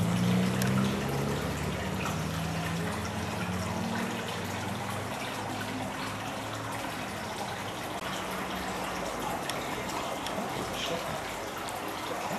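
Koi pond water splashing and trickling steadily. A low hum runs under it for the first five seconds or so, then fades.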